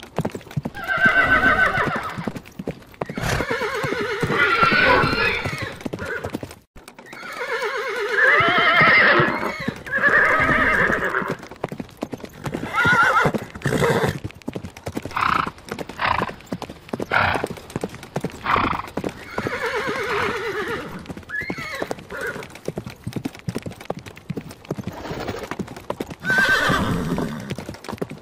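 Horses whinnying several times, long wavering calls, over a steady clatter of hoofbeats.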